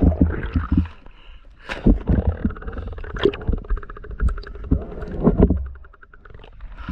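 Muffled underwater sound of moving water and knocks, heard through a submerged camera. A louder wash of water comes as the camera breaks the surface shortly before the end.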